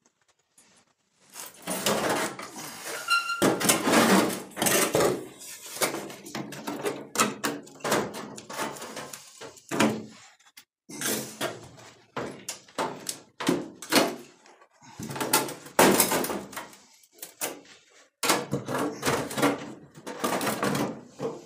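The old steel quarter panel of a 1957 Chevy being wrenched off the car body at its drilled-out spot welds: irregular scraping, creaking and clanking of sheet metal, with a brief metallic ring about three seconds in.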